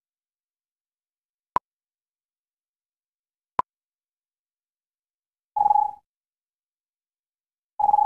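Electronic beeps: two very short pips about two seconds apart, then two longer beeps, also about two seconds apart.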